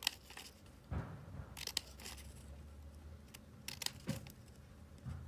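Scissors cutting slits in a folded sheet of paper: a series of short snips, roughly one a second, with paper rustling in the hands between them.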